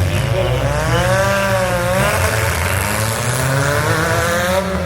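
Demolition derby car engines running and revving, pitch rising and falling in slow waves over a steady low rumble.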